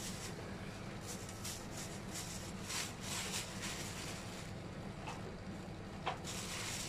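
White wrapping material being handled and rustled in a series of swishes, with a short sharp tap about six seconds in, over a steady low hum.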